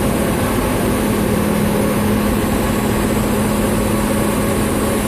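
Mobile crane's diesel engine running steadily: a loud, constant drone with a steady hum and no change in speed.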